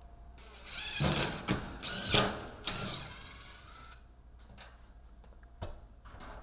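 Loud scraping and rattling from tools and hardware being handled for about three seconds, then two brief knocks.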